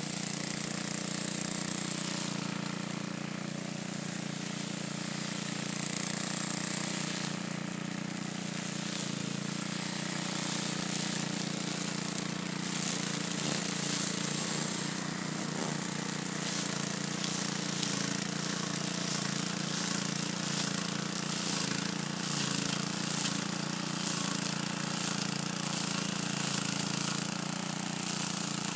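Old walk-behind rotary lawn mower's small gasoline engine running steadily as it is pushed through tall grass and weeds. From about halfway in, a rapid, irregular crackle is added.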